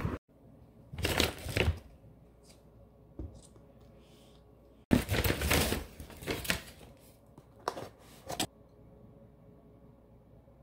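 Rustling and crinkling of packaging being handled on a table: a short burst about a second in, a longer, louder one about five seconds in, then a few sharp clicks.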